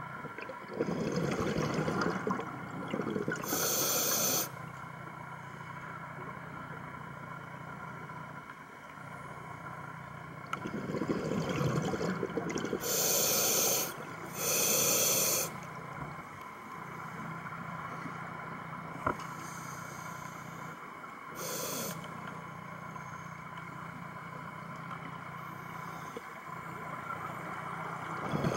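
Scuba diver breathing through a regulator underwater: hissing inhalations and gurgling exhaled bubbles, about three breaths, over a steady low hum.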